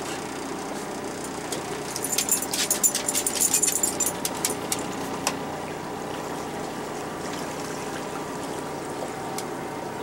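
Small boat's outboard motor running steadily at low speed. About two seconds in comes a burst of rapid sharp, high clicking that lasts about three seconds.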